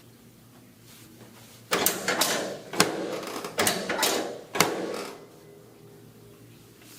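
A quick series of about six sharp cracks and knocks during a chiropractic adjustment, packed into a few seconds and each followed by a short rustling tail.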